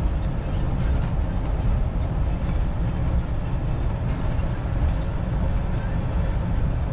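Kia Bongo 3 truck on the move: a steady deep engine and road rumble with no changes.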